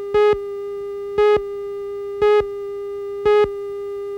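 Countdown leader tones: a steady electronic tone with a louder beep once a second marking each number of the countdown, four beeps.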